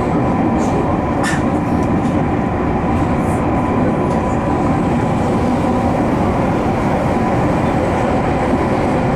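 Tokyu 5050 series (4000-number set) subway train running at speed through a tunnel: a steady rumble of wheels on rail with a faint steady whine. There is a brief sharp click a little over a second in.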